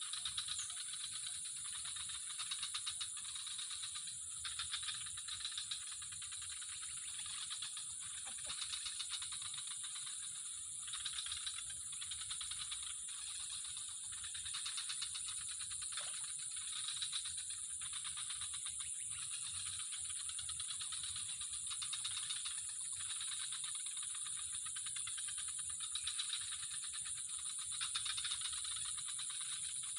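Chorus of insects: a steady high-pitched whine with rapid rattling trills that swell and fade every second or two.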